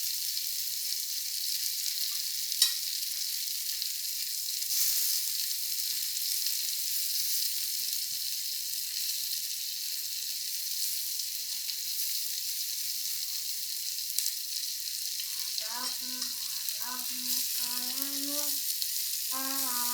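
Shrimp frying in hot oil in a pan: a steady crackling sizzle, with one sharp pop a little under three seconds in.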